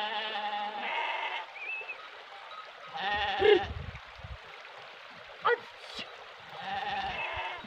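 Sheep in a grazing flock bleating: three long wavering bleats, one at the start, one about three seconds in and one near the end.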